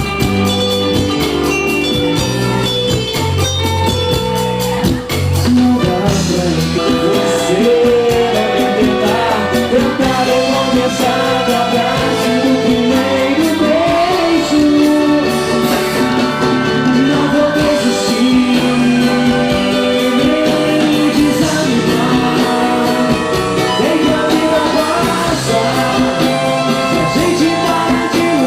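Live band playing a song with a steady drum beat, a moving bass line and a melody line over it.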